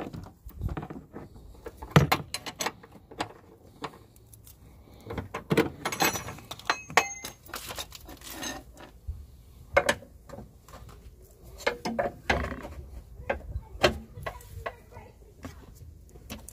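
Irregular metal clinks, clicks and knocks from hand tools and suspension parts being handled while a front shock absorber strut is fitted.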